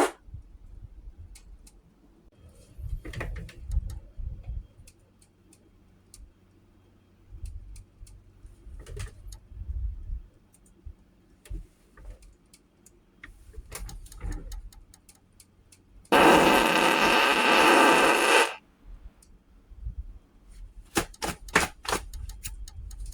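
Eating sounds: chewing with scattered clicks and light knocks, and one loud, noisy sound about two seconds long a little past the middle.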